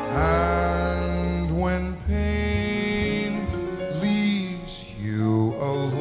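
Jazz orchestra with horns playing sustained, harmonised chords over a bass line. A lead line slides up in pitch about a second and a half in and slides down again near the end.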